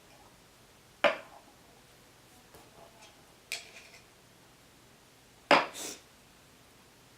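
Three short knocks of small hard objects: about a second in, around three and a half seconds in, and a double knock near the end, the first and last the loudest.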